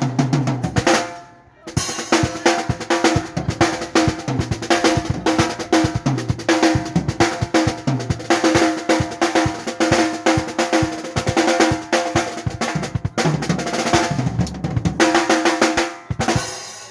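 Drum kit played fast, with snare, bass drum and tuned toms in busy fills. The playing breaks off briefly about a second and a half in, then resumes and stops near the end.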